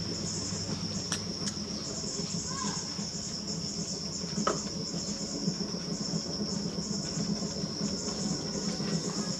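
Insects chirring steadily at a high pitch, with a low steady rumble underneath from the turning potter's wheel and a few faint clicks.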